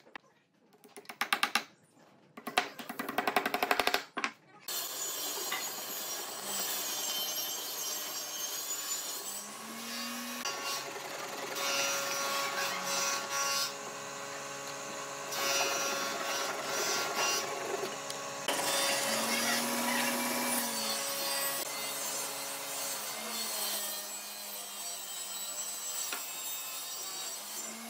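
A hammer strikes wooden dowel pegs several times, driving them into a wooden table base. A wide chisel then shaves and scrapes the pegs flush with the wood, a dense continuous scraping.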